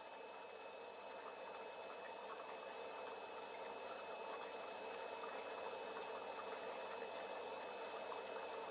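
Muffled underwater ambience picked up by a submerged camera: a steady, faint hiss with a thin constant whine above it, slowly growing louder.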